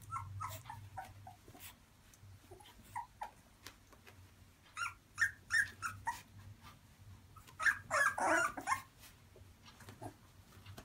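Three-week-old boxer puppies whimpering and yipping in short, scattered calls as they play and clamber over each other, with the loudest flurry of calls about eight seconds in.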